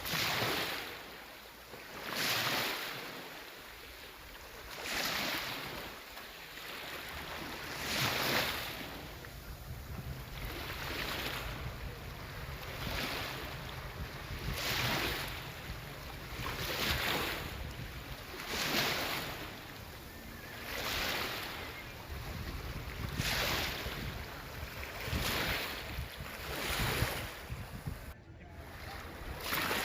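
Small sea waves washing onto the shore, one swell every two to three seconds, with wind rumbling on the microphone.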